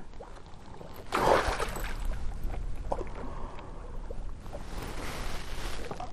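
Wind on the microphone and small waves against a boat, a steady noisy rush with a low rumble. There is a louder surge of it about a second in and a few faint clicks.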